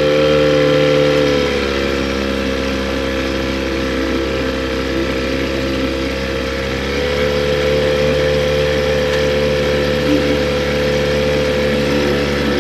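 Boat's outboard motor running steadily, its pitch easing down slightly about two seconds in and rising again about seven seconds in.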